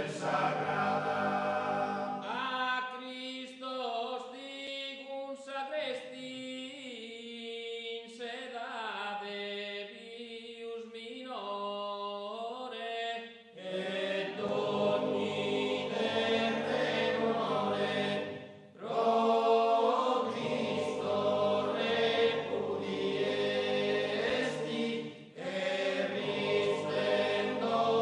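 Background music: a choir singing a slow chant. The texture thins and drops in level for about ten seconds, then the full choir returns about 13 seconds in, with short pauses between phrases.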